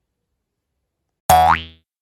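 A short cartoon-style 'boing' sound effect: one quick tone sliding upward in pitch. It cuts in suddenly just past the middle and fades out within half a second.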